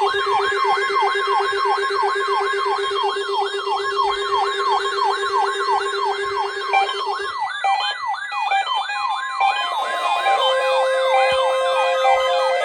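An electronic siren sweeping rapidly up and down, a few times a second, layered with the steady tone of a weather-radio warning alarm. Beneath them a low buzzing tone runs and stops about seven seconds in.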